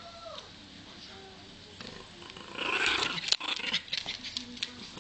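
A dog growling in rough, noisy bursts that start about halfway in, broken by a run of sharp clicks.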